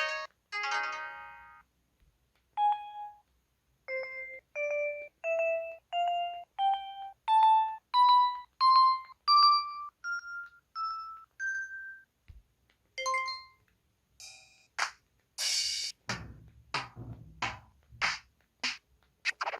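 Electronic sound effects from an IM-S640S mobile phone: a short chime and a single beep, then a run of clean beeps stepping up in pitch about twice a second. Near the end come a string of sharp clicks and short hissy bursts.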